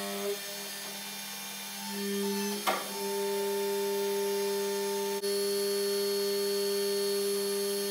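Hydraulic press brake's pump motor humming steadily while a small steel plate is bent. The hum swells about two seconds in, a sharp click comes shortly after, and the hum then holds steady at a higher level.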